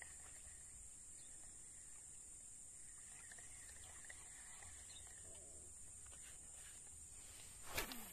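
A steady, high-pitched drone of insects chirring in the background, with one sharp knock near the end.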